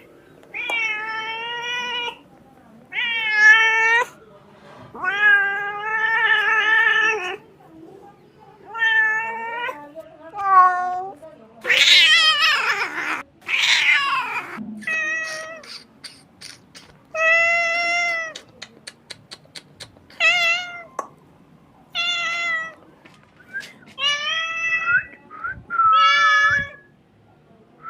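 A kitten meowing again and again: a string of drawn-out crying calls, each a second or two long with short gaps between. About twelve seconds in come louder, harsher cries, followed by a quick run of clicks.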